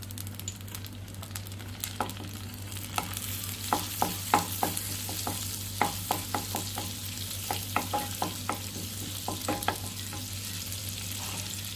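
Cumin seeds sizzling in hot butter in a pan, a steady hiss with frequent sharp clicks as they are stirred, starting about two seconds in.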